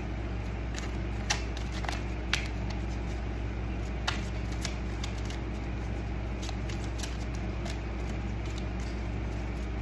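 Tarot cards being handled on a wooden desk: a few soft taps and clicks over a steady low hum.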